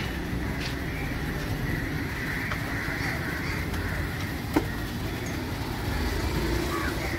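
Onion pakoda deep-frying in a kadai of hot oil: a steady sizzle over the low rumble of street traffic. About four and a half seconds in there is one sharp metal clink as the skimmer knocks against the kadai.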